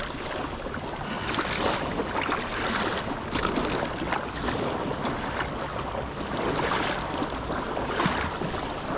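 Wind on the microphone mixed with water lapping and sloshing, an irregular steady rush without any distinct events.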